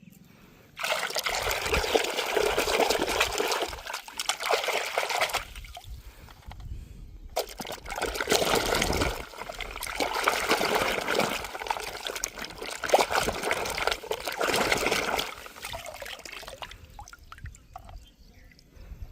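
Water running and splashing over toy cars being washed, in two long spells: the first from about a second in to about four seconds, the second from about seven seconds in, tailing off near the end.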